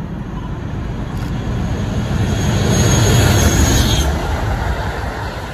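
Class 56 diesel-electric locomotive running under power as it approaches and passes close by, its Ruston V16 diesel engine loudest about three seconds in, with a thin high whine over it. Then the wheels of the loaded bogie tank wagons it hauls roll past.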